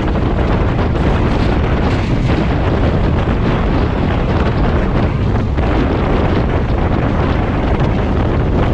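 Loud, steady rushing rumble of a double-stack container freight train passing at speed on the adjacent track, heard from an open door of a moving train, with wind buffeting the microphone.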